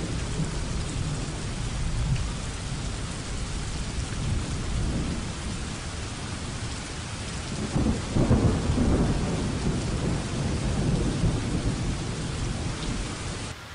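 Thunderstorm recording: steady rain with rolling thunder, the loudest rumble about eight seconds in. It stops abruptly just before the end.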